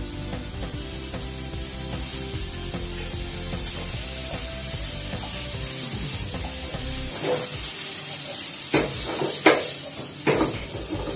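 Food sizzling steadily in a frying pan on a gas burner while it is stirred with chopsticks. Several sharp clacks in the second half come from the chopsticks and pan knocking together.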